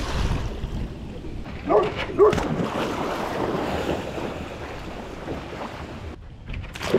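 Water splashing and churning as a dog swims hard through a river, with wind buffeting the microphone. About two seconds in come two short, high cries.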